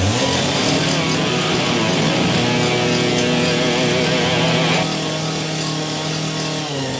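Chainsaw engine running steadily, with background music.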